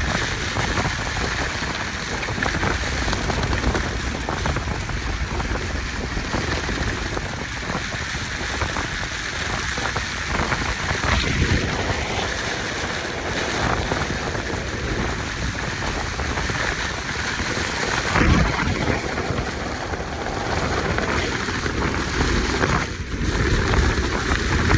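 Heavy rain driven by strong microburst winds, a loud, steady rush with gusts buffeting the microphone.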